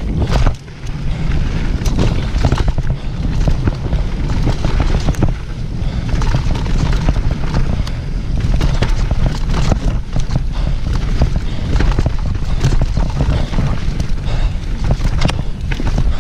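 Wind buffeting the microphone of a camera on a downhill mountain bike at speed, a continuous low rumble, with the bike rattling and knocking many times over rough trail.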